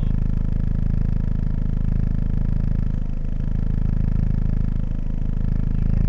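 Car engine idling, a steady low rumble heard inside the cabin.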